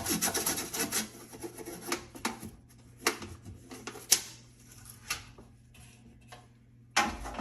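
A stiff toothbrush scrubbing the inside of a microwave, the grime wet with rubbing alcohol. It makes rapid scratchy strokes for about a second, then slower separate strokes, then brisk scrubbing again near the end.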